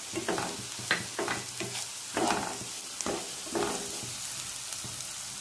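Diced onions sizzling in hot coconut oil in a nonstick pan, with a steady frying hiss. A spatula scrapes and stirs through them about once a second.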